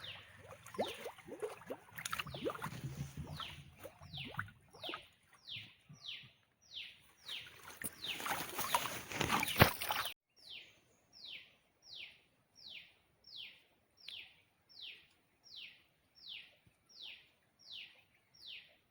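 A bird calling a long, regular series of short whistled notes, each sliding sharply down in pitch, about three every two seconds. Over the first half irregular rustling and knocks sound along with it, and they stop abruptly about ten seconds in.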